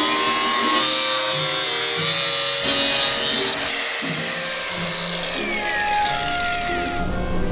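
Handheld power cutter trimming the edge of a cultured-marble bathtub, a gritty hiss that stops near the end, over background music with held notes.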